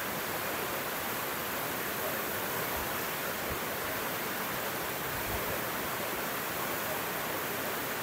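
Waterfall's water rushing in a steady, even hiss.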